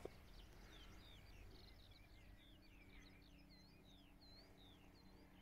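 Faint birdsong: a run of short chirping notes, each rising or falling in pitch, over quiet open-air background.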